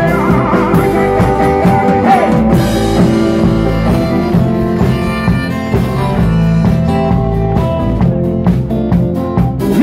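Live rock band playing an instrumental passage between sung verses: electric guitars, bass guitar and drum kit.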